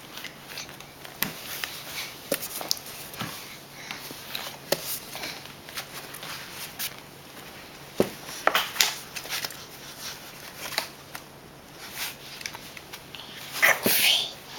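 Scattered short sniffs and soft handling clicks in a small room, with a louder breathy sound near the end.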